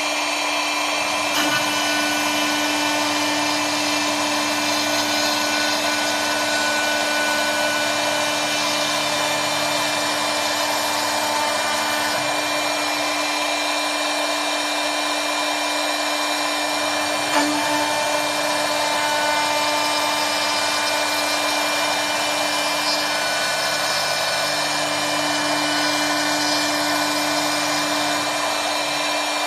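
CNC wood-turning lathe running, its router spindle cutting spiral flutes into a turned wooden chair leg: a steady high-pitched whine over the hiss of the bit in the wood. A lower motor hum comes in for two long stretches, about a second in and again later on.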